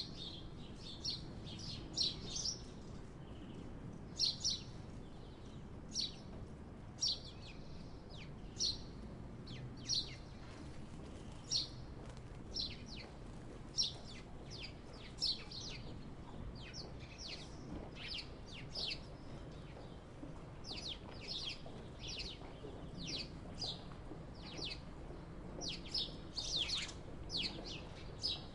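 Sparrows chirping: short, high chirps repeated irregularly about once or twice a second, over a faint low rumble.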